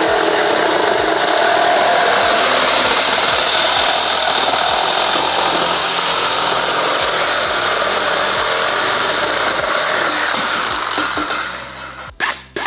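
Corded Makita reciprocating saw cutting through thin galvanized spiral-seam steel duct clamped in a vise, a steady loud rasping buzz. It dies away about eleven seconds in, followed by a few quick knocks.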